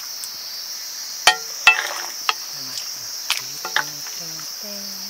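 Steady high-pitched insect chorus, with a handful of sharp knocks and clicks over it, the two loudest close together about a second and a half in. A faint low voice murmurs in the second half.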